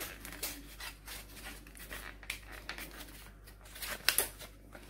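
Crinkling rustle of a plastic sheet as pastry dough is folded and rolled in it, with many short handling strokes and a sharper rustle about four seconds in.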